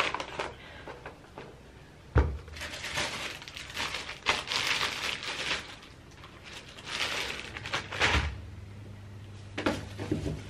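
Clear plastic packaging crinkling and rustling as it is handled, in two longer stretches, with a dull thump about two seconds in and another about eight seconds in.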